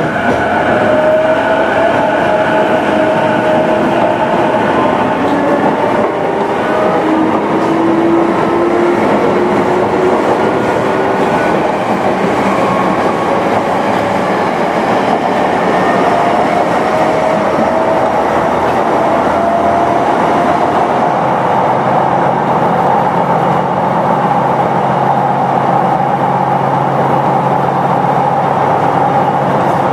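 Running sound inside a Sotetsu 11000 series motor car: the Mitsubishi IGBT-VVVF inverter and traction motors whine in several tones that climb slowly in pitch as the train gathers speed, over wheel and rail noise. Near the end the whine levels off and a steady low hum comes in. It is the same type of inverter as on JR's E233 series.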